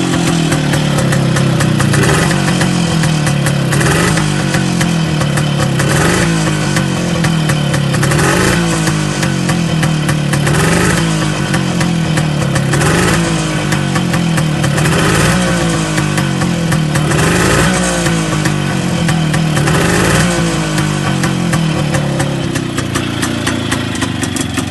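Classic Montesa Brio motorcycle's two-stroke single-cylinder engine running and being revved over and over, the pitch rising and falling about every two seconds, then holding steadier near the end.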